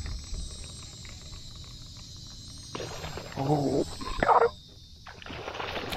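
A man's wordless exclamations and strained groans about three seconds in, over a faint steady hiss.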